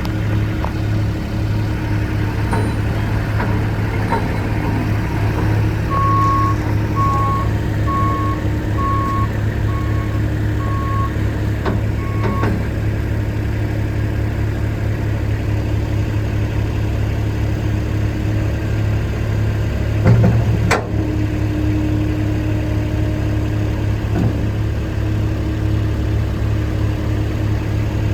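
Kubota 3.3-litre four-cylinder turbo diesel of a Takeuchi TL8 tracked skid steer running steadily while the loader works. Its reverse alarm sounds a string of about seven short beeps, one a second, as it backs up, and there is a single sharp clank about two-thirds of the way in.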